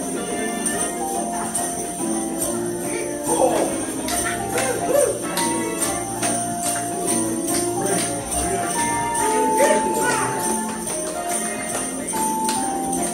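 Many small handheld jingle bells shaken in time with a Christmas song, over a melody of held notes.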